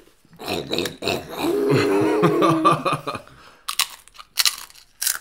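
A person's wordless voice for about three seconds, then a few sharp crunches as a child bites into and chews a fried tortilla chip.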